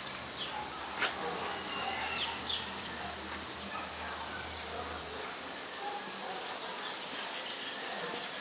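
Ambient background: a steady hiss with scattered short bird chirps, a sharp click about a second in, and a low hum that stops about five seconds in.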